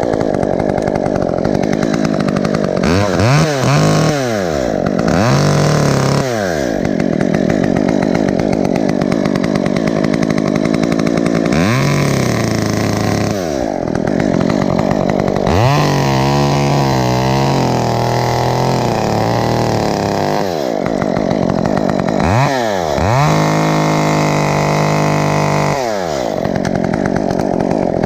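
Chainsaw running, revved up and held several times and dropping back between, as it cuts tree branches.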